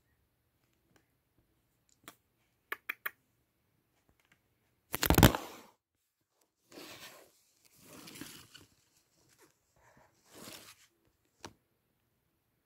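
Handling and rustling noise close to the phone's microphone: a few small clicks, then one loud bump about five seconds in, followed by three bursts of rubbing noise as the phone is moved about.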